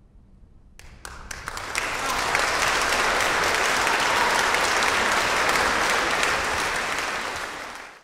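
Concert-hall audience breaking into applause: a few scattered claps about a second in, swelling within a second into full, steady applause that dies away near the end.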